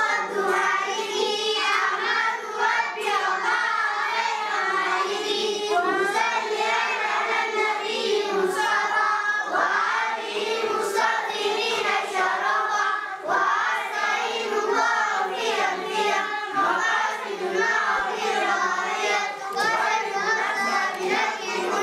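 A group of children singing a chant together, their high voices running on without a break.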